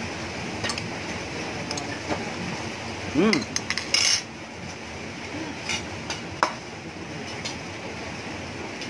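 Metal fork and spoon clinking and scraping against a ceramic plate while eating, a scatter of separate clicks that come thickest about three to four seconds in.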